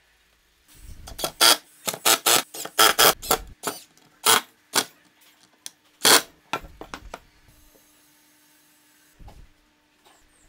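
Cordless driver sinking screws into plywood in a dozen or so short bursts, starting just under a second in and stopping about seven seconds in.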